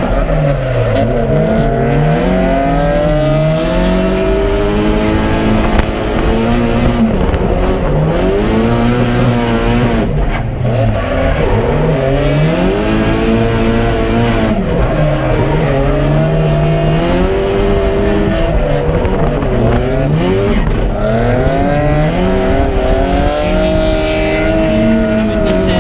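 Nissan S13's engine revving up and down over and over while drifting, rising and falling every second or two, heard from inside the cabin with tyre noise underneath.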